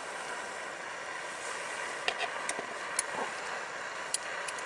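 Hamburger patty frying in a pan: a steady sizzling hiss with a few sharp pops and ticks.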